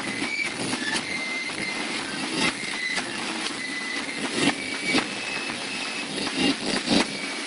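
Marching flute band playing: short high flute notes over repeated bass drum and snare drum beats.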